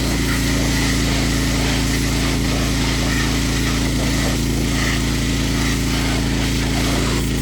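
Small petrol engine of a pressure washer running steadily, with the hiss of the high-pressure water spray.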